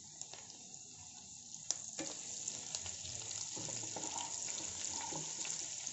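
Sliced green chillies, ginger and garlic sizzling in hot oil in a non-stick pan, with scattered crackles as they are stirred with a wooden spatula. The sizzle grows a little louder about two seconds in.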